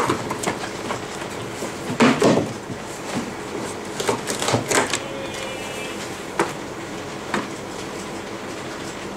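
Packaging handled by hand: plastic bags crinkling and the foam insert and cardboard box rustling and bumping, in bursts near the start, about two seconds in and about four to five seconds in, then two single knocks.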